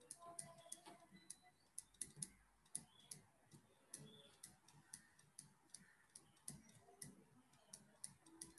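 Faint, irregular clicks of a stylus tapping on a tablet screen as equations are handwritten, a few taps a second.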